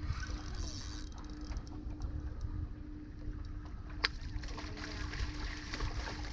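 Open-air ambience on a small fishing boat: a low rumble of wind on the microphone and water movement, with a faint steady hum and scattered small ticks. A single sharp click comes about four seconds in.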